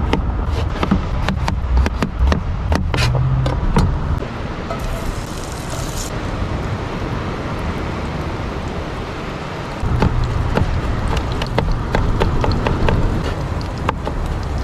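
Kitchen knife chopping on a plastic cutting board: a run of quick sharp taps as a potato is cut, a quieter stretch, then more rapid chopping of herbs near the end. A steady low rumble runs underneath.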